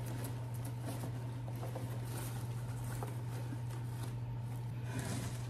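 Faint rustling and light ticks of artificial berry stems being spread apart and pushed into a floral arrangement, over a steady low hum.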